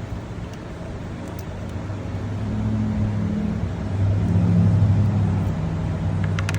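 A motor vehicle engine running with a low, steady hum that grows louder about two seconds in and is loudest a little past the middle.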